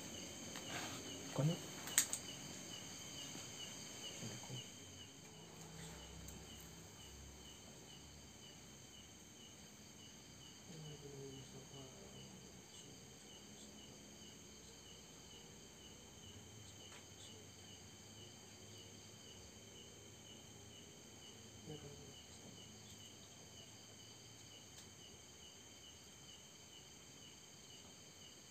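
Faint night-time crickets chirping in a steady, even rhythm, with a high insect trill behind them. A sharp click sounds about two seconds in, and there are a few soft low rustles of handling.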